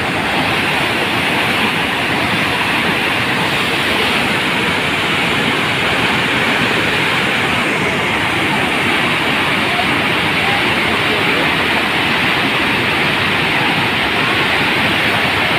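Swollen, muddy floodwater rushing in a torrent past a bridge wall: a loud, steady rush of water.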